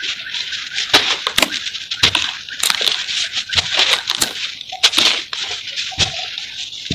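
Dry cement chunks crumbled between the hands, powder and grit pouring into a basin with a steady hiss and many sharp crackles and snaps as pieces break apart.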